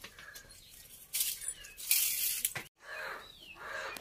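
Two short bursts of rustling, hiss-like noise, then after an abrupt cut a few birds calling, with one short descending chirp.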